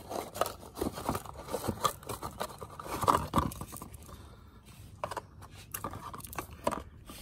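Crinkling and rustling of packaging, with scattered small clicks, as the new Honda thermostat is handled and drawn out of its box.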